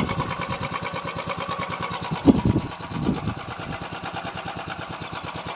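Royal Enfield Classic 350 single-cylinder engine running at idle with a steady, rapid beat, with two brief louder swells about two and three seconds in.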